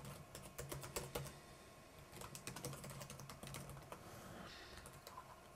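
Computer keyboard typing: a quick run of faint keystrokes that stops about four seconds in.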